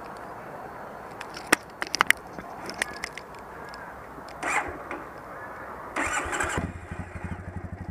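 2014 Triumph Bonneville's parallel-twin engine being started: a few clicks, then a brief burst of the electric starter that does not catch. About six seconds in, a second crank fires it and it settles into an even idle. Not starting on the first press is the fault the owner is asking about.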